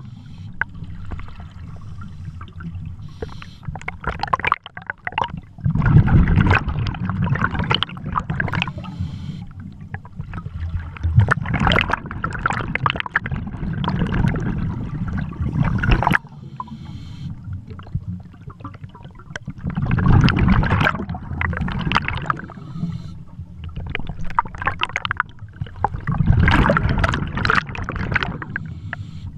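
Scuba diver's exhaled breath through a regulator underwater, bubbling and gurgling in surges every several seconds, with a low rumble between them.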